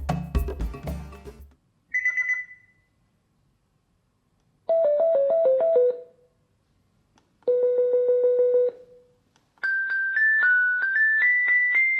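Music stops about a second and a half in, then a string of short electronic alarm-clock tones follows with gaps between them: a brief beep, a short falling melody, one held tone, and near the end a looping chiming tune.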